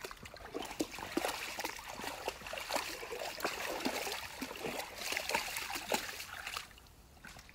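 A husky wading through shallow stream water, its legs sloshing and splashing in a quick irregular series; the splashing fades about a second before the end.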